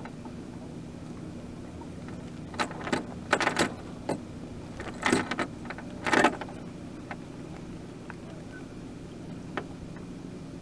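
Precision 18 sailboat under sail: a steady rush of wind and water, with a few short bursts of metallic clinking and rattling from the boat's hardware in the middle of the stretch, then a couple of single ticks.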